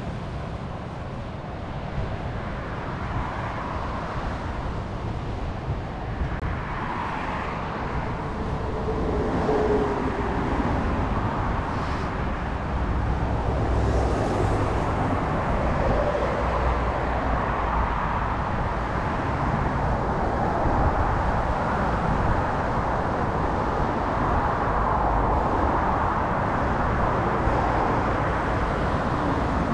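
Surf breaking and washing over a pebble beach, a steady rushing noise that grows louder about halfway through and then holds.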